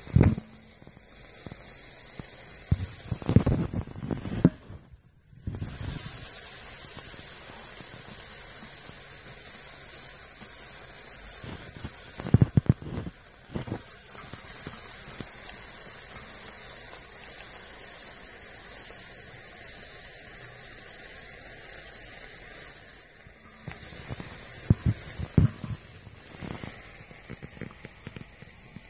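Red-hot metal ball sizzling with a steady hiss as it sears into a block of mozzarella cheese and smokes. A few short knocks break in near the start, a few seconds in, about halfway and near the end.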